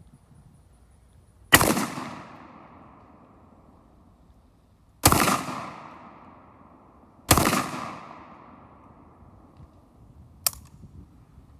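Three shots from a Panzer Arms BP-12 12-gauge bullpup shotgun firing slugs, about a second and a half in, at five seconds and two seconds later, each with a long echoing tail. A single short, sharp click follows near the end.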